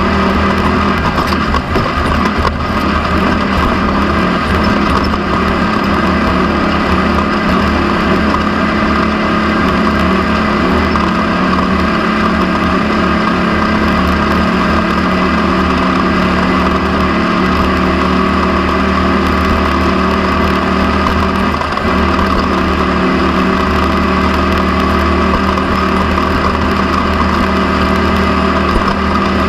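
An off-road race vehicle's engine running hard at a nearly steady pitch, heard from a camera mounted on board, with road and wind noise under it.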